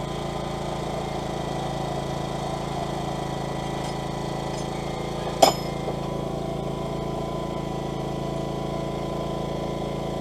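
Steady motor drone of shop machinery, with one sharp metallic clink about halfway through.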